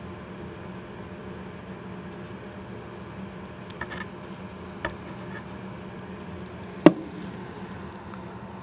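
Steady low hum, with a few light clicks around the middle and one sharp knock about seven seconds in.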